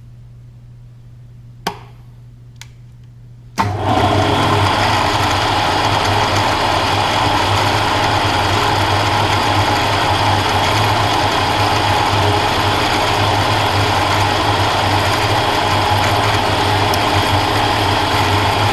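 A couple of small clicks, then about three and a half seconds in a milling machine's spindle starts abruptly and runs at a steady, loud, even hum, shifted out of back gear for high-speed drilling of a small number 41 hole.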